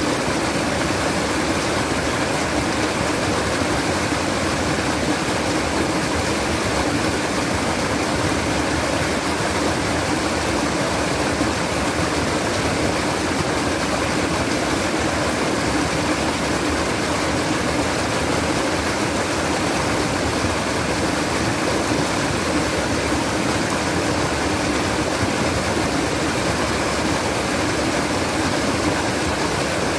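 Water flowing and babbling in a stream, a steady, even rush that never lets up.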